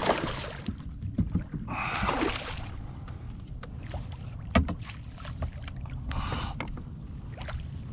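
Water splashing in short bursts around a kayak, with a few sharp knocks, the loudest about four and a half seconds in, over a low steady rumble.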